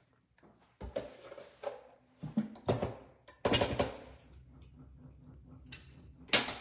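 A wire whisk knocking and scraping against a steel mixing bowl of whipped topping, a few short clatters with the loudest scrape a little after the middle.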